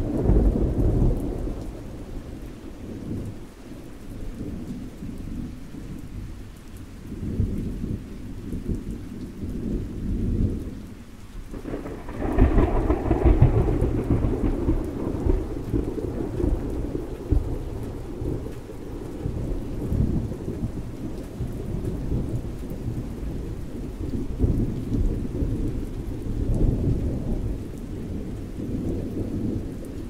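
Rain falling during a thunderstorm, with thunder rumbling on and off. About twelve seconds in, a louder peal of thunder swells up and rolls away over a few seconds.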